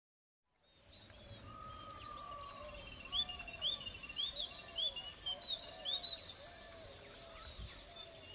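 Countryside ambience: a steady high-pitched insect buzz with several birds calling over it, including a run of quick repeated chirps in the middle. It fades in about half a second in.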